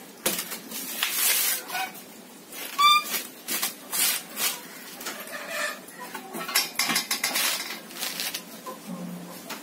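Coconut husk being pried on a fixed husking spike and torn away by hand: a run of irregular rasping rips and fibrous tearing, with a brief squeak about three seconds in.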